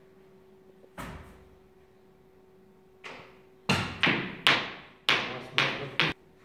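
Snooker play: a single sharp click of the cue striking the cue ball about a second in and a fainter click a couple of seconds later, then six loud, sharp knocks in quick succession, each with a short ringing tail.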